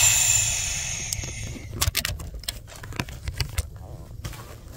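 Handling noise from a phone being moved about inside a car. A loud hiss at the start fades over about a second and a half, then comes an irregular run of clicks and knocks over a low rumble.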